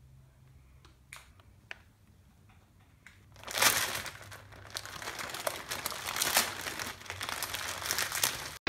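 Lay's Classic family-size potato chip bag crinkling as it is handled, twisted shut and wrapped with a rubber band. The crinkling starts about three and a half seconds in, after a couple of faint clicks.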